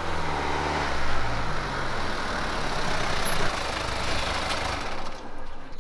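Hyundai SUV driving up with its engine running and a rush of tyre and road noise, the engine note falling a little as it slows; the rushing fades about five seconds in.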